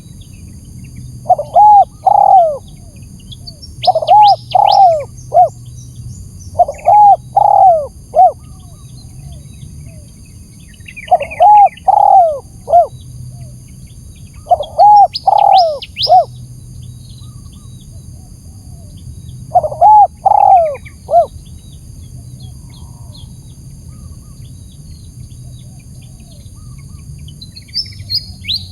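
Spotted dove cooing: a phrase of three or four arched coo notes repeated every two to four seconds, seven times, then falling silent for the last several seconds. It is a tekukur lure call meant to draw wild doves in. Smaller birds chirp faintly at a higher pitch.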